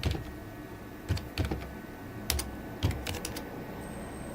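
Computer keyboard being typed: about seven separate keystrokes at an uneven pace, as a shell command is entered.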